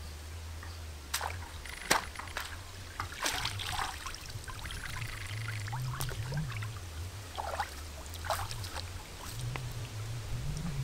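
Pond water sloshing and trickling as greens in a woven tray are dipped and rinsed, with scattered small splashes and drips.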